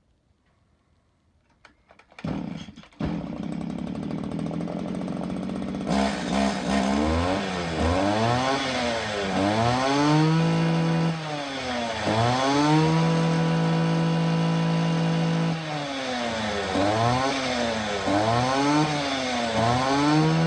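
Stihl FS 85 string trimmer's two-stroke engine starting about two seconds in and running on test after its crankcase was resealed with new seals. It idles briefly, then is revved up and down again and again, held at full speed twice for a few seconds.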